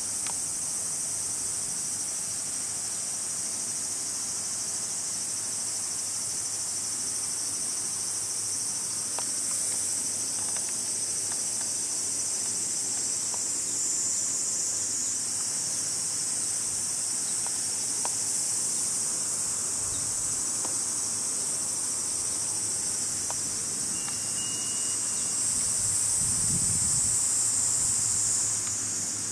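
A steady, high-pitched chorus of insects chirring without a break. Near the end a low rumble briefly swells beneath it.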